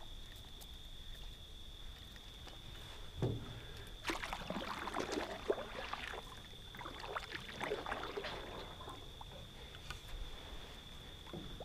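Canoe paddle strokes through calm water: the blade dipping and pulling with splashes, drips and light knocks on the hull, in a run that starts about three seconds in and lasts several seconds. A steady thin high tone sits underneath throughout.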